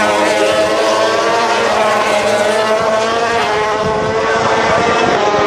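MotoGP racing motorcycle engines running at high revs, several heard at once as the bikes go through the corner and away.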